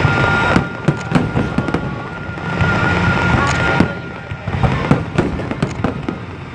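Aerial fireworks bursting: a rapid series of sharp bangs with crackling and a deep rumble underneath.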